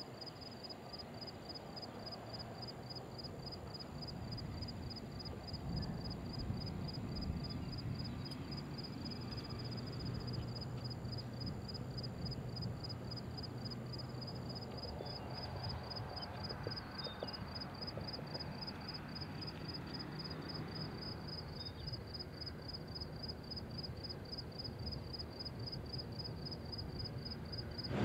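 Outdoor ambience: a fast, even, high chirping pulse, several a second and typical of insects in the grass, over a low steady rumble.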